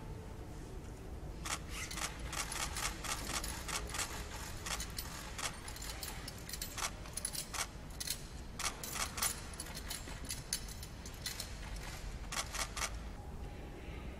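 Sharp clicks and rattles in quick, irregular runs, starting about a second and a half in and stopping shortly before the end, over a faint steady hum.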